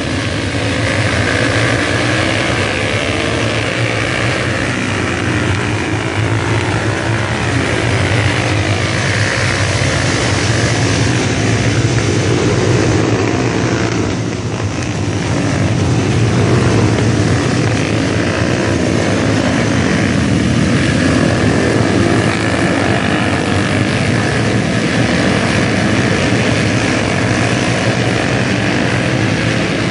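A pack of Kayo MiniGP racing minibikes lapping together, many small engines buzzing and revving at once, their pitches rising and falling as they accelerate and brake through the corners. The mix shifts briefly about halfway through.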